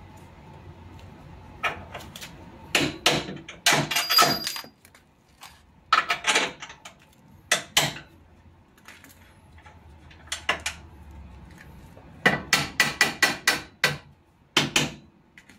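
Hammer striking metal on a car's front suspension, in bursts of quick blows with pauses between; the longest run, near the end, is about half a dozen rapid strikes, and a few blows leave a brief metallic ring.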